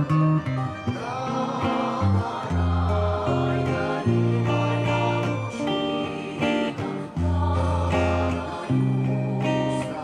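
Les Paul-style electric guitar playing a slow melody, picked notes and chords over long-held low notes.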